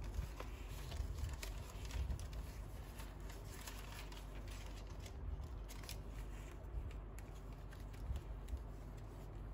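Paper pages of a handmade junk journal rustling and crinkling as they are turned by hand, including kraft paper and thin, crinkled tissue-like paper, in an irregular run of soft rustles and crackles.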